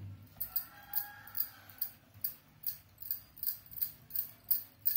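Bangles on the wrist clinking in a steady rhythm, about two or three times a second, with each stroke as hands shape and roll out a chapati dough ball on a wooden board.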